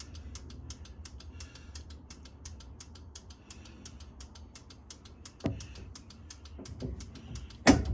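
VW dune buggy turn-signal flasher relay clicking rapidly, about five clicks a second, going real fast because the signal lamps are not drawing any current. A louder click stands out about five and a half seconds in and again near the end.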